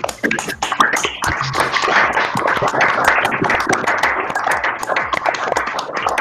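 Applause: several people clapping together, a dense run of overlapping claps.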